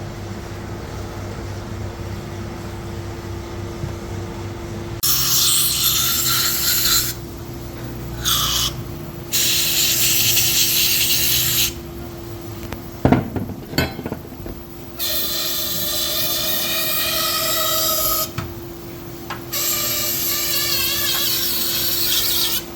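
A pressurised spray nozzle hissing in five bursts of one to three seconds each, some with a slight whistle, with a couple of sharp clicks between bursts. The spray is cleaning carbon off the intake and injector parts.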